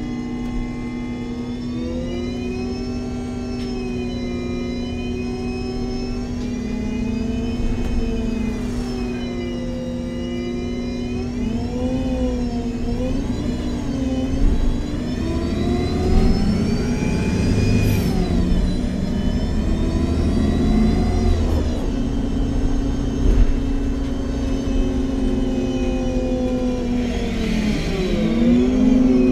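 MAN Lion's City G articulated CNG bus heard on board while driving, its Voith automatic gearbox and engine whining in several pitches that rise and fall again and again as the bus speeds up and slows, over a steady low hum and road rumble.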